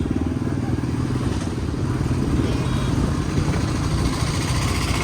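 Motorcycle engine running steadily under way, with a continuous low engine note and road noise.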